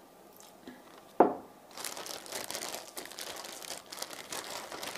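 A single knock about a second in, a glass sauce bottle set down on a wooden bar top, then a plastic zip-top bag crinkling steadily as raw beef strips and Worcestershire sauce are kneaded together inside it.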